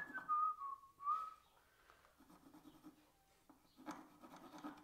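A person whistling a few notes of a tune, sliding from higher to lower pitch, over the first second and a half. Softer rustling and scraping sounds follow.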